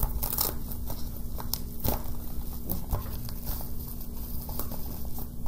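Yellow padded mailer envelope being handled and opened, with irregular rustling, crinkling and light knocks as the contents are pulled out.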